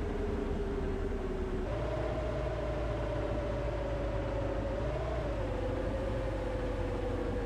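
Bus on the move, with a steady low engine and road rumble and a single whine. About two seconds in, the whine steps up in pitch, then slowly sinks.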